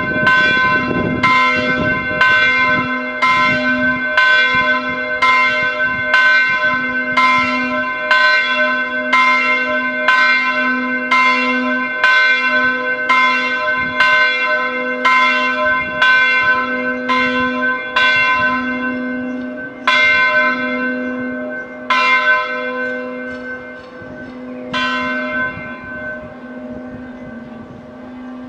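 Swung church bell ringing for the 11 o'clock peal, striking about once a second with a long ringing hum between strokes. Near the end the strokes slow to three last, more widely spaced ones as the bell swings to rest, and the sound dies away.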